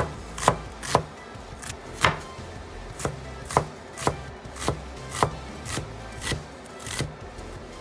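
Steel cleaver chopping an onion on a wooden cutting board: a string of sharp knocks of the blade striking the wood, roughly two a second.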